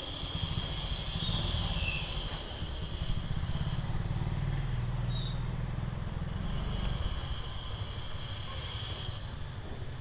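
A grinding machine running steadily: a low rumble that pulses quickly, with a thin high whine that drops away a couple of seconds in and returns about seven seconds in.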